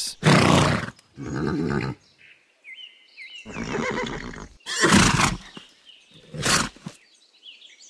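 A horse calling in five short bursts, with faint bird chirps in the gaps between them.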